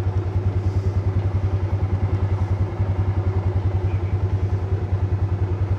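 Small engine running steadily with an even, rapid chugging pulse of about ten beats a second.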